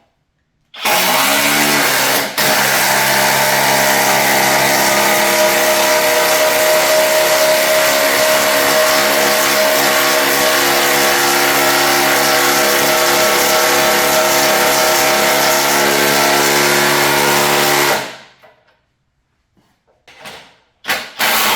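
Cordless impact driver running at full speed for about seventeen seconds at a steady pitch, starting about a second in and stopping near the end.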